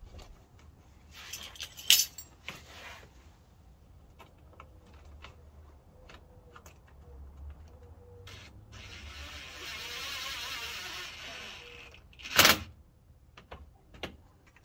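Scattered small clicks and clinks of hardware and the plastic front lip spoiler being handled by hand under a car's front bumper. A soft rustling hiss runs for a few seconds past the middle, and a sharp knock comes near the end.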